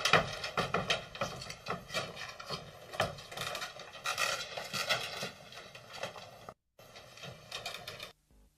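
Irregular scraping, rubbing and knocking noises, broken off briefly about six and a half seconds in, then stopping abruptly about eight seconds in.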